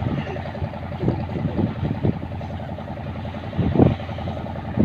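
A boat's engine running steadily, giving an even low drone. A brief louder burst comes about four seconds in.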